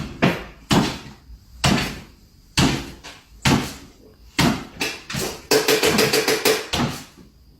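A string of sharp knocks or bangs, roughly one a second, with a quicker run of knocks about two-thirds of the way through.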